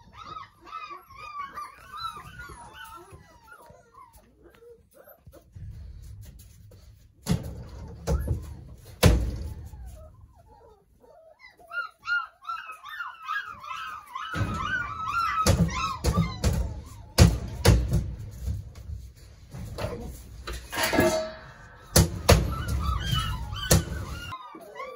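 Doberman puppy whimpering and whining in bouts of high, wavering cries, with several sharp thunks of the plexiglass dog-door flaps knocking in between.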